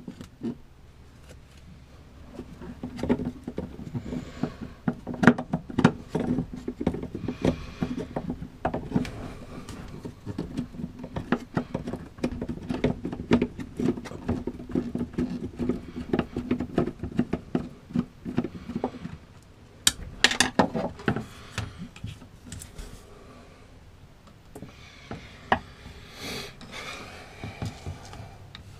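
Hands and a screwdriver working on the water pump's hose fittings inside a wooden compartment: a long run of irregular knocks, clicks and rubbing, with a low steady hum under it for most of the first two-thirds, then a quieter stretch broken by more clicks about twenty seconds in and again near the end.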